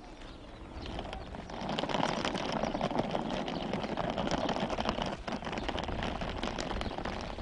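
Small wheeled suitcase pulled over a stony dirt track, its wheels rattling and grinding steadily, starting about a second and a half in.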